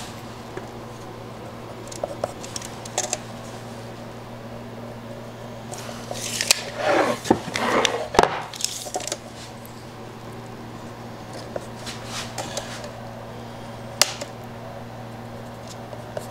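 Steel tape measure and pencil being handled on a plywood panel: light scratches and ticks, then a rattling run about seven seconds in that ends in a sharp click as the tape retracts into its case. There is one more sharp click near the end, over a steady low hum.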